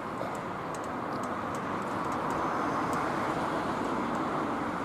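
Road traffic: a vehicle passing on a nearby road, its tyre and engine noise swelling to a peak about three seconds in and then fading.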